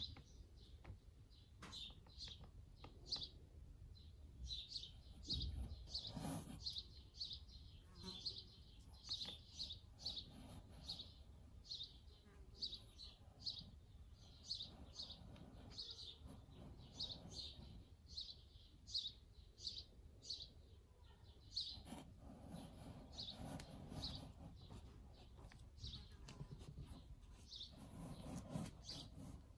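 A small bird chirping over and over in the background: short, high chirps, about one to two a second. A few faint rustles come in the later part.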